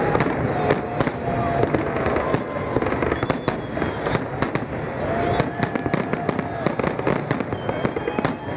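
Large aerial firework shells bursting in quick succession: a dense string of sharp bangs and crackles, several a second, over a continuous low rumble.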